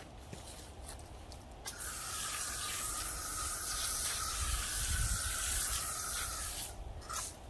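Water spraying onto a concrete slab to wet it down before grinding: a steady hiss that starts about two seconds in and runs for about five seconds, cuts off, then comes back in one short spurt near the end.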